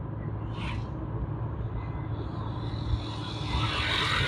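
Car on the move: steady low engine and road rumble, with a louder rush of noise swelling about three and a half seconds in.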